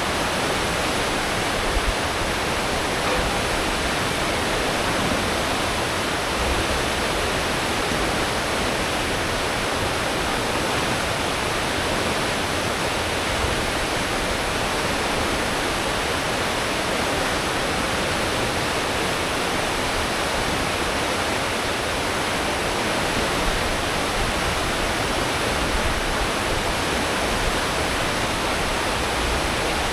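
Cruise ship's wake churning and rushing behind the stern at full speed, a steady roar of water with the ship's engines and propellers rumbling low beneath it.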